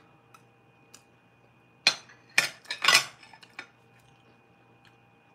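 Metal spoon and chopsticks clinking against ceramic plates and bowls: a couple of light taps, then a cluster of louder clinks about two to three and a half seconds in.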